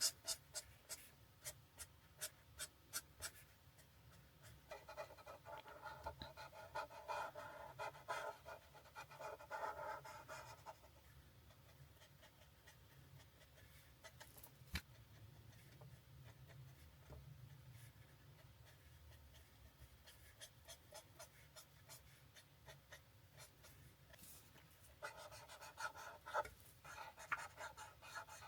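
Alcohol marker tips gliding and rubbing on paper in repeated colouring strokes, louder in two spells, with small taps early on and one sharp click near the middle.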